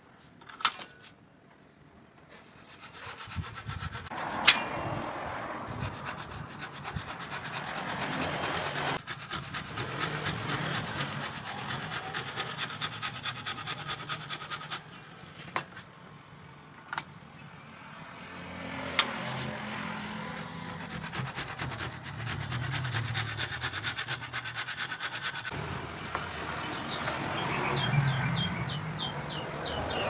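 Hand rubbing strokes on a petung bamboo hoop clamped in a bench vise, repeating a few times a second, as the bamboo is smoothed down. A few sharp knocks stand out, the loudest about four seconds in.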